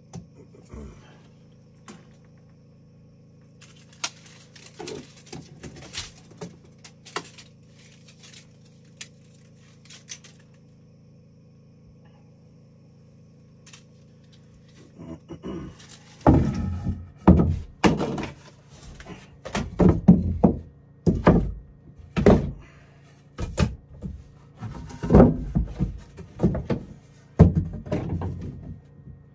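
Wooden knocks and thuds from carpentry work: light scattered taps and clicks at first, then about halfway through a run of heavy, irregular thuds, one or two a second, over a steady low hum.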